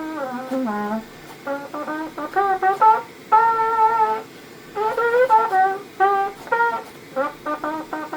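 3D-printed trumpet with a PETG body and a metal mouthpiece playing a tune: a run of short separate notes with a few longer held ones, the pitch wavering slightly.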